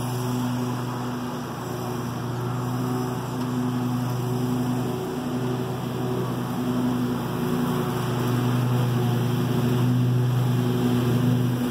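Scag Tiger Cat II zero-turn mower running steadily while mowing, its engine hum growing louder as it drives closer.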